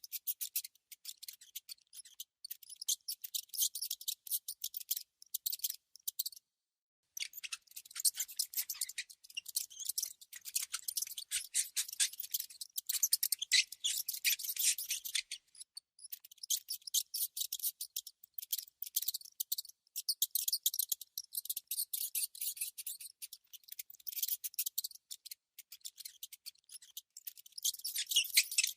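A mouse's rapid, high-pitched scratching and clicking, dense and uneven, with a brief silent break about six and a half seconds in.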